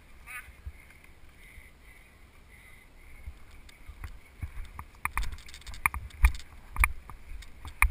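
Running footsteps on grass, starting about halfway in as steady thuds roughly twice a second.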